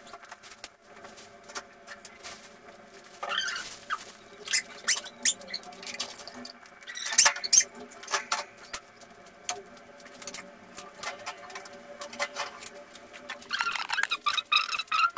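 Scattered clicks, knocks and rustles of plastic as cat cages, a plastic bag and a plastic bottle are handled, with short squeaks. A denser pitched, repeating sound starts near the end.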